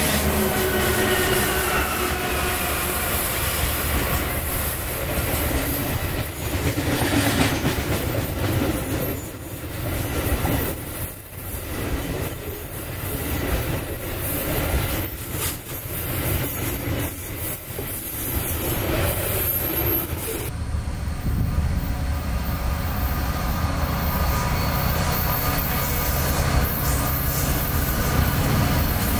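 Diesel-hauled freight train rolling past: locomotives and then covered hopper cars, with high squealing wheel tones in the first couple of seconds and a steady rumble and clatter of wheels on rail. About twenty seconds in, the sound changes abruptly to another diesel-locomotive-led freight train approaching, its engines running with a steady low drone.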